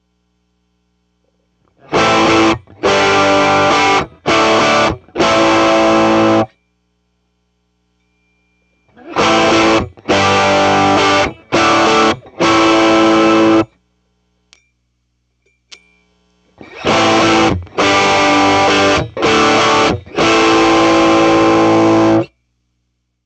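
Electric guitar played through a 1963 Vox AC10 valve amplifier: three phrases of about four strummed chords each, every chord cut off short, with pauses between the phrases.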